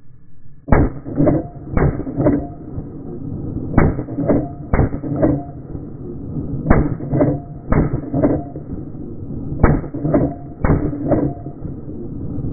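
AR-15 rifle shots in slow motion: four pairs of shots, each pair about a second apart, every shot followed by a weaker second crack about half a second later.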